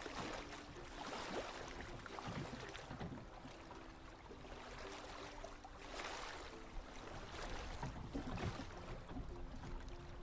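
Layered water ambience of waves and wind around a boat moored at a dock, with occasional light knocks. A faint ukulele tune plays a little way off.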